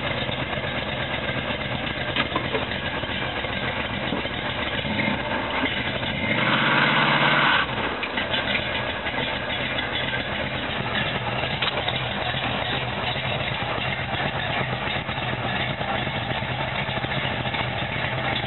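Car engine running at a low idle, with one short, loud burst of revving and rear-tire spin about six seconds in during a burnout.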